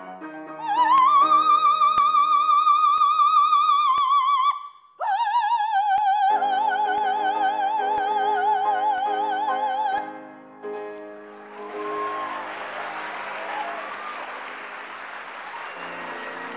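Operatic soprano singing over piano accompaniment: a high note reached by a slide up and held with vibrato, then a lower long note with wide vibrato. About eleven seconds in, the singing ends and applause takes over.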